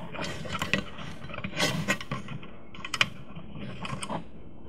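Light handling noise as stranded wire ends are pushed into a plastic screw terminal block: scattered small clicks and rustling, a few sharper ticks among them.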